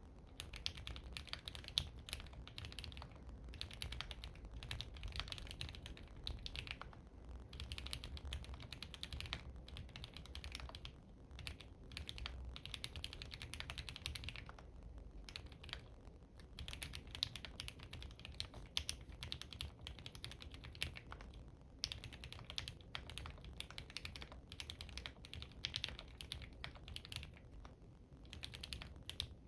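Typing on an OwLab Spring mechanical keyboard with Krytox-lubed Gateron CJ linear switches and a POM plate, heard through a phone's microphone. Rapid runs of key clacks are broken by short pauses every few seconds.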